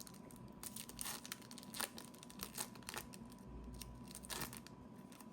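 A foil trading-card pack wrapper being torn open and crinkled by hand, a run of irregular crackles and rips that thins out near the end.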